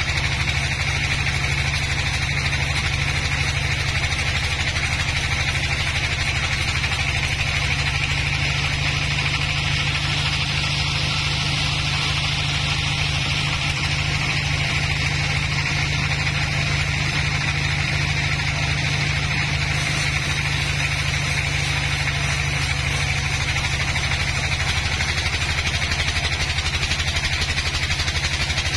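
Band sawmill running steadily while its band blade rips lengthwise through an old, dry log. A low, even machine drone sits under a higher rushing sound from the cut, which is stronger through the middle of the pass.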